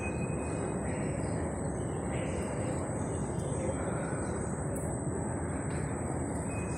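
Steady rumbling noise of a moving escalator and the metro station hall around it, with a thin high steady whine.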